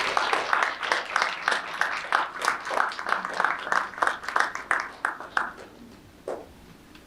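A small audience applauding, the clapping dying away about five and a half seconds in.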